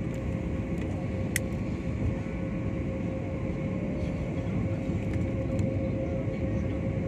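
Steady cabin noise of a jet airliner on its descent to land, heard from a window seat by the wing: an even rumble with a constant engine hum tone. A single sharp click sounds about a second and a half in.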